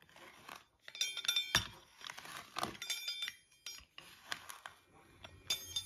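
Pizza cutter wheel clinking and rattling against a plastic tub as it is rolled through kinetic sand: several sharp clinks with a short metallic ring come in clusters, about a second in, near the middle and near the end, with soft scraping of sand in between.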